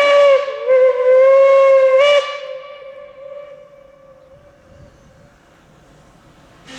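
Steam locomotive whistle blowing for departure: the tail of one long blast, a brief break, then a second blast of about a second and a half that stops sharply about two seconds in.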